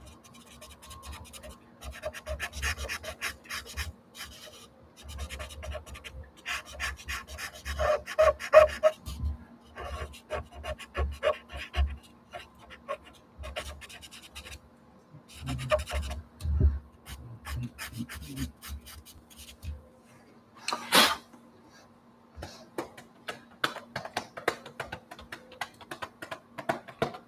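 Pastel scratching on gesso-coated watercolour paper in runs of quick short strokes with pauses between them, and one sharper tap about three-quarters of the way through. A faint steady hum runs underneath.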